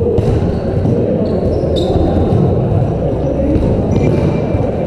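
Dodgeball game noise in a hall: rubber dodgeballs bouncing and thudding, with two sharp hits near the start and about two seconds in, over players' voices and short high squeaks.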